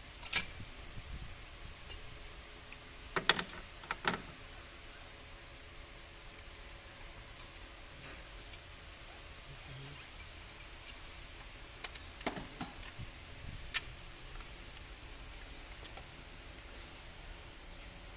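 Scattered sharp metallic clinks and clicks from a socket wrench and extension being handled and worked on engine bolts. The loudest comes right at the start, with small clusters about a quarter of the way in and again about two-thirds through.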